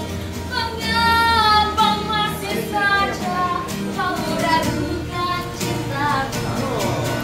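A female street singer singing a slow melody in held notes that bend in pitch, over steady instrumental accompaniment.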